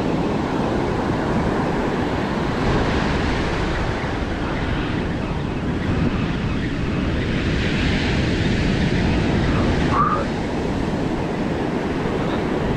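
Ocean surf breaking offshore and washing up the sand, a steady rushing that swells and eases with the waves.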